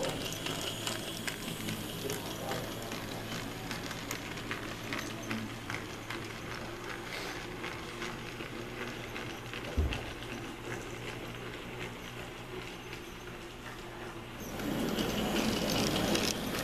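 Model steam locomotive and its passenger cars running on layout track: a steady fine clicking and rattling of wheels and running gear, louder near the end as the locomotive passes close. A single low thump comes about ten seconds in.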